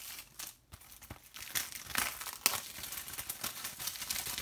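Plastic shrink-wrap being torn and crinkled off a Blu-ray case: irregular sharp crackles, sparse at first and busier after about a second and a half.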